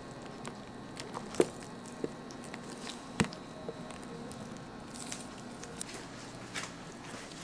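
A knife slicing through a clear jelly rice cake: soft squishy cutting sounds with scattered small clicks, and two sharper knocks about a second and a half and three seconds in.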